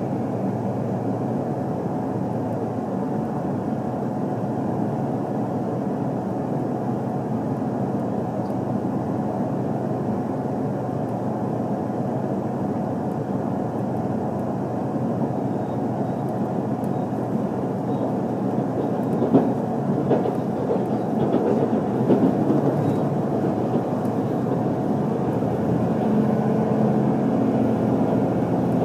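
HC85 hybrid diesel-electric train running at speed: a steady rolling rumble of wheels on rail, with a few sharp knocks about two-thirds of the way through and a low steady hum coming in near the end.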